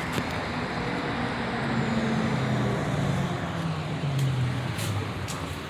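Vehicle lift lowering a pickup truck: a steady hiss with a low hum that drops in pitch near the end.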